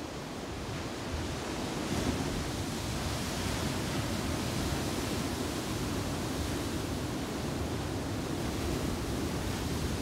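Ocean waves breaking on a rocky shore: a steady rush of surf that swells a little about a second in.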